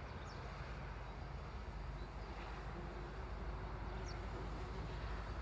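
Steady outdoor background noise with a low rumble underneath, and two short, faint high chirps, one near the start and one about four seconds in.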